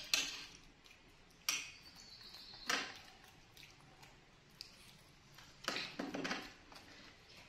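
Scattered clinks and knocks of dishes and utensils, about half a dozen, a couple of them ringing briefly.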